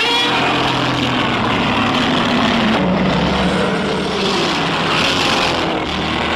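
Godzilla Terrestris monster roar sound effect: a loud, harsh, sustained roar that starts abruptly and runs several seconds, its pitch sliding slowly down through the middle.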